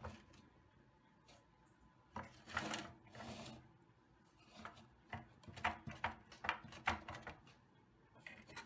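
Rusty 1970s Tonka pressed-steel forklift toy being handled on a countertop: a click, a scraping rub about two seconds in, then a run of light rattling knocks from its loose, rusted metal parts.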